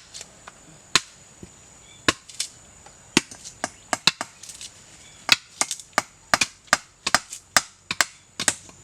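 Hammer blows driving nails into a wooden shelter frame: a few separate strikes at first, then quicker ones, about two a second, from about five seconds in. A steady high insect drone runs underneath.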